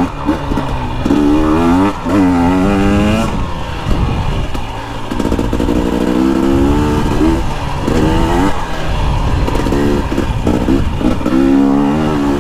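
2021 KTM 250XC TPI's fuel-injected single-cylinder two-stroke engine being ridden, its pitch rising and falling several times as the throttle is opened and closed.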